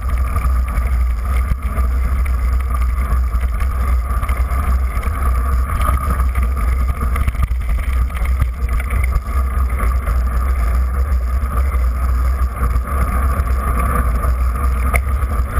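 Steady rumble from a camera mounted on a mountain bike riding over packed snow: wind buffeting the microphone mixed with tyre and trail vibration coming through the mount.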